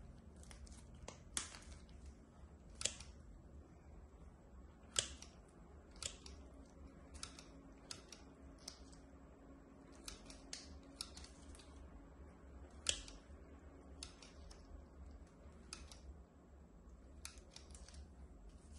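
Metal snips cutting through a thick, curled toenail: a string of sharp snips and clicks at irregular intervals, with a few louder snaps among them.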